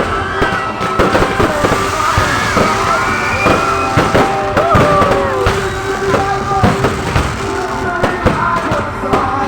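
Fireworks going off in quick succession, many sharp bangs one after another, close by, with music playing underneath.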